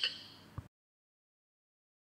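Dead digital silence: a voice trails off, one faint click comes about half a second in, and then the sound track is empty.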